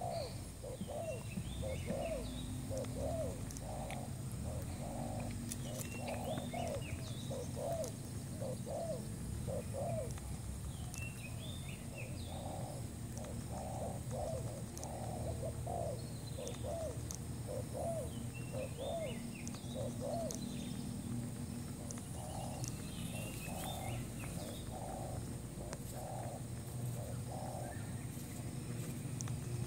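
Spotted dove (terkukur) cooing over and over in short repeated phrases, the call of the decoy bird used to lure wild doves. Small birds chirp higher up now and then.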